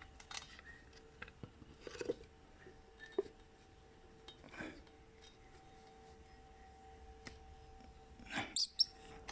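Faint handling noises as a heat-shrink-wrapped cup is worked onto a shock absorber rod by hand: scattered light knocks and rubbing, with a louder scrape near the end as the cup slides on tightly. A faint steady hum runs underneath.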